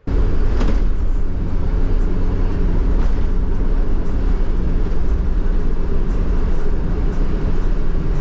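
Steady, loud road and wind noise of a car driving at highway speed, heaviest in the low rumble, starting abruptly.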